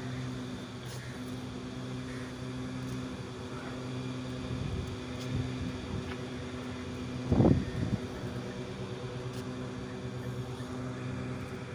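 Steady machine hum: a low drone with a few higher overtones held at fixed pitch. A brief loud bump about seven seconds in.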